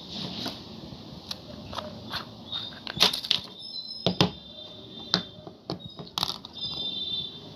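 Small plastic cream jars and their screw-on lids being opened, handled and set down on a table: scattered clicks and taps of plastic, with a crackle of torn wrapping. The loudest cluster of clicks comes about three seconds in, with more sharp taps near four and six seconds.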